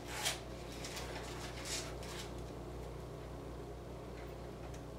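Electric toaster running with its elements on: a faint steady low hum, broken by two brief noises, one just after the start and another a little under two seconds in.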